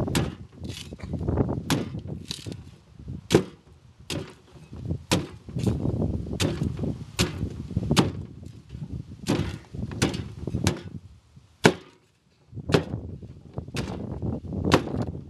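Machete chopping the husk off a green coconut: sharp whacks of the blade biting into the husk and the wooden board beneath, irregular, about one a second, with a short pause about three-quarters of the way through.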